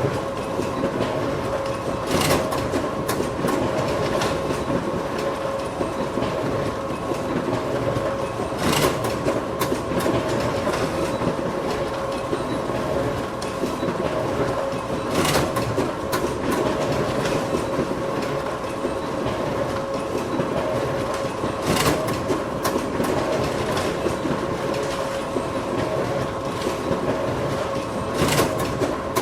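Photocopier running steadily with a constant hum and whir, punctuated by a sharp clack about every six and a half seconds, five times in all.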